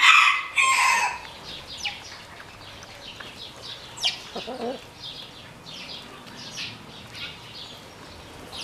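Black Orpington chickens clucking and calling: a loud squawk in the first second, then scattered short high calls and a lower cluck about four seconds in.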